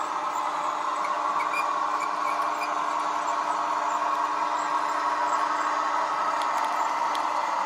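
Model train running on the layout with a steady, even hum and a faint low tone beneath it.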